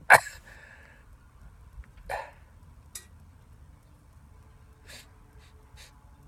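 A man coughs once, loud and sharp with a short voiced tail, then gives a weaker cough about two seconds in, followed by a faint click and soft breaths. His nose and throat are irritated as he tries to bring on sneezes.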